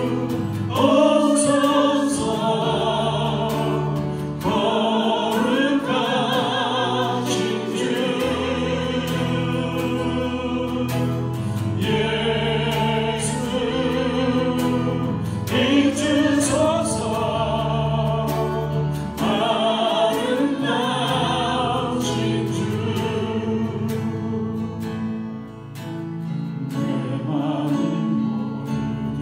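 Sacred song: singing with vibrato over a sustained instrumental accompaniment, in phrases of about four seconds, with a short lull near the end.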